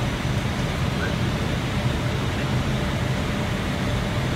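Steady low rumble of an Airbus airliner's flight deck on final approach: an even rush of airflow, air conditioning and engine noise.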